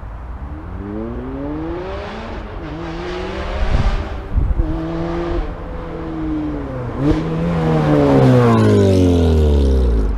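Supercharged Lotus Exige S2 accelerating hard with its custom valved exhaust wide open: the engine note climbs, breaks for an upshift about two and a half, four and seven seconds in, then is loudest as the car passes, the pitch falling as it goes away.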